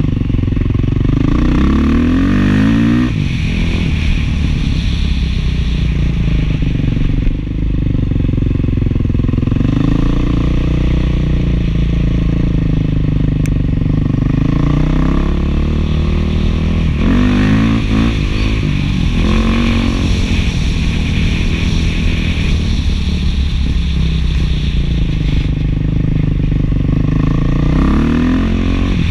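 Beta 500 dual-sport's single-cylinder four-stroke engine, breathing through an FMF 4.1 muffler, running under way. It revs up in rising pitch three times: about a second in, around seventeen seconds, and near the end, holding steadier in between.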